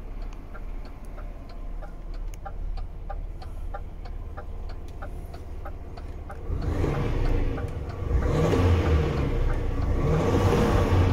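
DAF CF 460's PACCAR MX-11 six-cylinder diesel idling, heard inside the cab, with a steady light ticking. About six and a half seconds in, it is revved up to around 1,300 rpm and held, running much louder.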